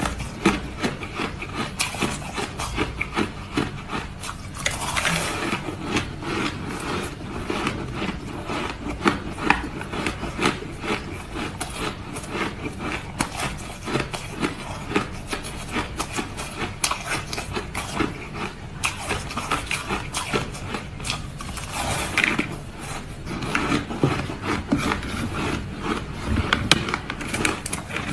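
Ice crunching and crackling close to the microphone: a dense, continuous stream of crunches and sharp cracks, with a couple of softer gritty swells.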